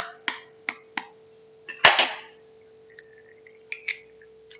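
Egg tapped several times against the rim of a glass bowl, with a light ringing after each tap, then cracked and dropped into milk about two seconds in, with a wet splash and drip.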